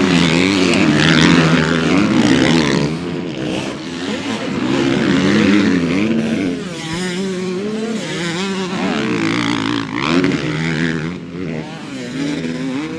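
Several motocross bikes revving hard as they take a jump, with engine pitch climbing and dropping as the riders open and close the throttle and overlapping engines passing one after another. Loudest in the first few seconds, then easing somewhat toward the end.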